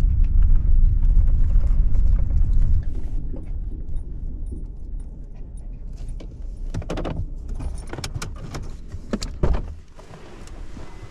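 Ford pickup truck driving on a rough dirt track, heard from inside the cab: a low road-and-engine rumble that drops off after about three seconds as the truck slows, then light rattles and clicks with keys jangling against the steering column.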